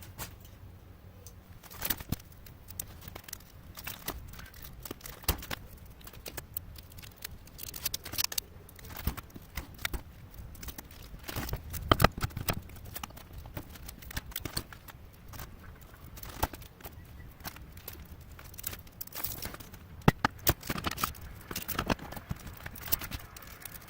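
Irregular clicks, clinks and knocks of hand tools and metal as copper windings are pried and pulled out of a copper-wound electric motor, with a few louder knocks about halfway through and near the end.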